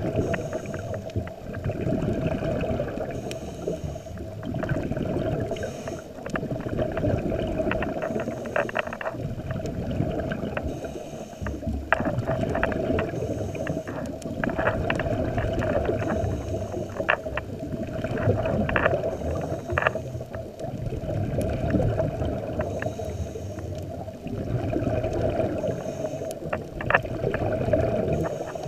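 Scuba diver breathing through a regulator underwater, heard through a camera housing: a hiss on each breath in and a rush of bubbles on each breath out, swelling and fading every few seconds, over a steady hum with scattered sharp clicks.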